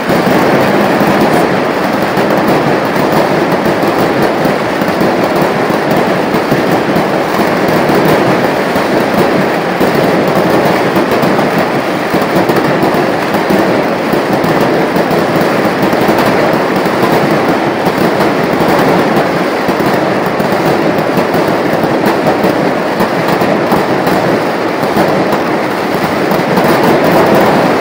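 Dense, continuous crackling of fireworks and flares going off together in a football stand, a steady loud rapid rattle with no pauses.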